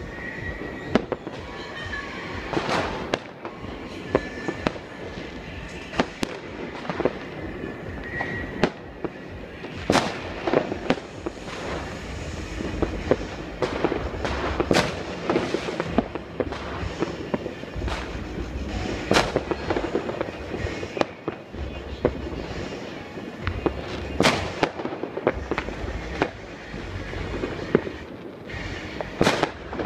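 Fireworks going off all around: a steady stream of firecracker and rocket bangs, some close and sharp, others distant, over continuous crackling and popping. A few short whistles sound in the first ten seconds or so.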